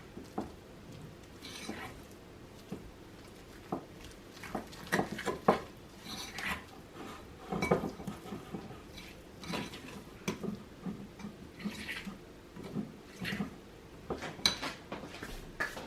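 A fork clinking and scraping against a bowl in irregular strokes, as when mixing a batter.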